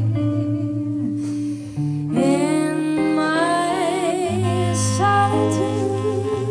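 A live band playing a song: a woman singing long held notes with vibrato, backed by electric guitar and low bass notes.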